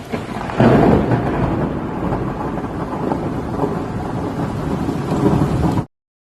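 A loud, deep rumbling noise with a hiss over it, heaviest about half a second in, that cuts in and out abruptly.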